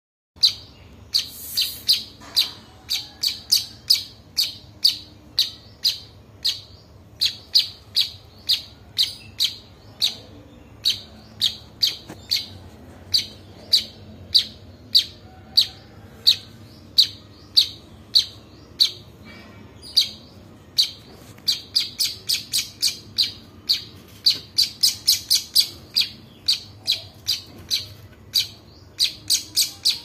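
Fledgling songbird chirping over and over: short, sharp, high chirps about two to three a second, coming faster in stretches, typical of a chick begging to be fed.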